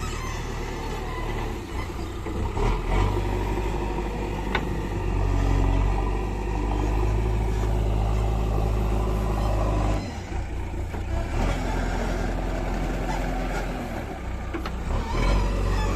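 A diesel engine running steadily, with its pitch and load shifting a few times and a brief drop about ten seconds in.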